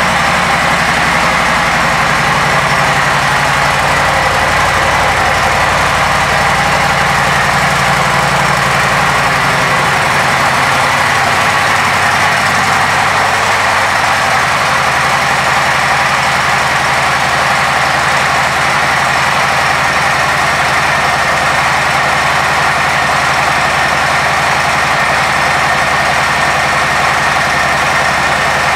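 Harley-Davidson Milwaukee-Eight 107 V-twin engine of a 2018 Street Bob idling steadily. The deepest rumble thins about ten seconds in.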